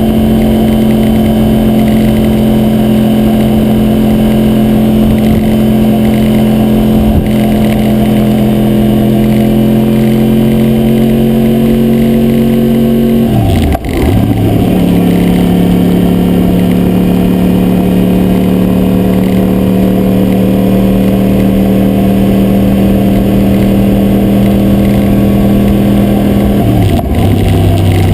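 2009 Yamaha YZF-R1's crossplane inline-four engine pulling under steady acceleration, its pitch climbing slowly, with a quick upshift about halfway through and another near the end. A rattle from the loosely fitting GoPro mount runs under the engine.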